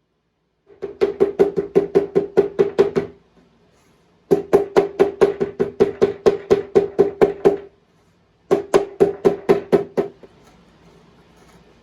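Hammer striking steel in quick, even blows, about six a second, each blow ringing. The blows come in three runs, the middle one the longest, with short pauses between them.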